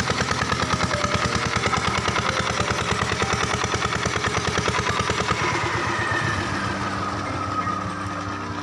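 Diesel engine driving an irrigation water pump, running with a fast, even chugging beat over the rush of water from the outlet. From about six seconds in, the beat softens and a whine falls in pitch as the engine slows down.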